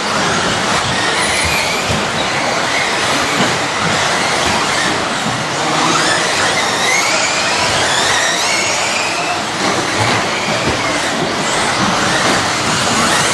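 Several electric radio-controlled model off-road cars racing on a carpet track, their motors whining up and down in pitch, overlapping, as they accelerate and brake, over a steady rush of tyre and drivetrain noise.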